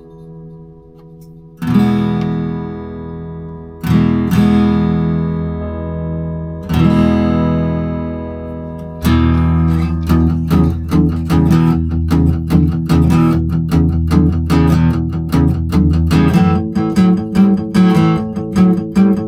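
Taylor GS Mini acoustic guitar: three single chords strummed and left to ring out, then from about halfway in a steady rhythmic strumming pattern.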